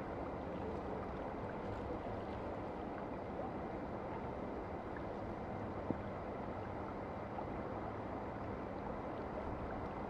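Steady rush of a small brook's water flowing among ice and stones into a river. A single brief click is heard just before the six-second mark.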